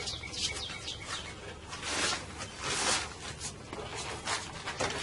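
Small birds chirping, short quick falling chirps, with a few brief swishing rubbing sounds from the rubber molding being worked around the glass edge.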